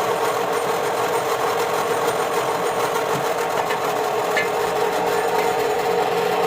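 A workshop power tool running steadily: a constant hum with an even noise over it.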